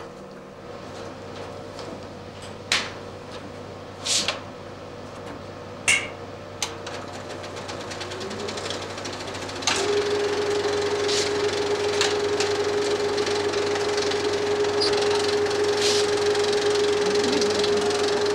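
35 mm film projector mechanism: a few separate clunks, then the level rises and from about ten seconds in it runs steadily with a continuous mechanical clatter and a steady hum.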